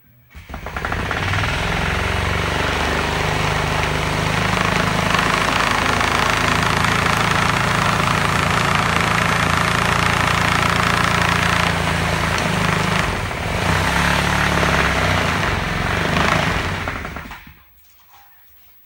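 Sawzall reciprocating saw running pressed against the underside of a plywood vibrating table, shaking a melamine form of wet concrete to settle it. It runs steadily and loud for about seventeen seconds, easing briefly about thirteen seconds in, then stops.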